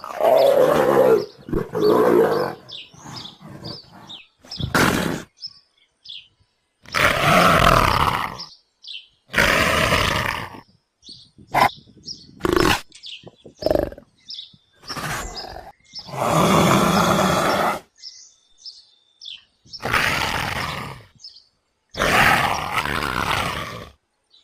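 Leopard growling and roaring in a series of about ten calls, some over a second long and some short, with quiet gaps between them.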